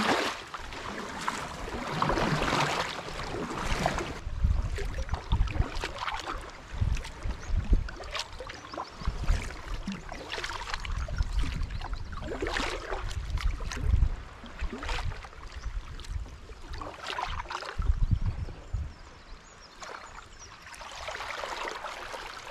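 Kayak paddle strokes: the blade dipping and splashing through calm sea water, a swell of splashing every few seconds, with low thumps in between.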